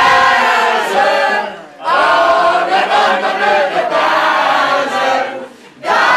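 A mixed group of men and women singing a song together loudly, in three phrases with two brief pauses between them.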